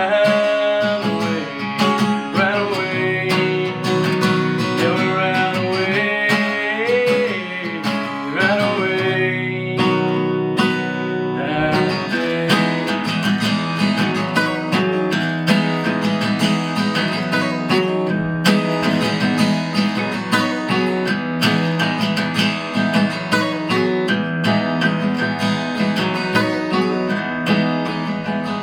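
Acoustic guitar strummed and picked, playing an original singer-songwriter song, with a gliding vocal melody over roughly the first ten seconds and steady strumming after that.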